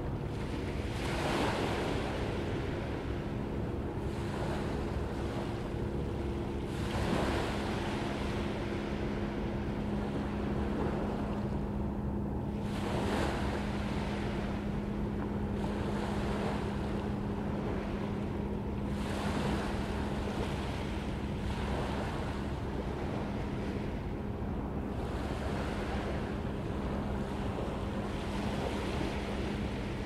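Ocean waves breaking on a beach, a surge of surf about every six seconds over a steady wash. A steady low hum runs underneath.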